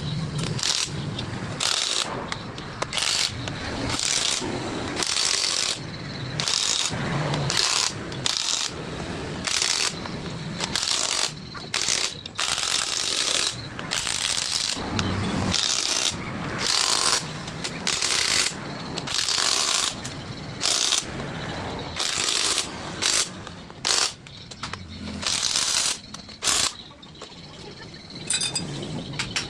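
Ratchet wrench worked in repeated short strokes, roughly one a second with brief pauses, tightening up parts of a differential.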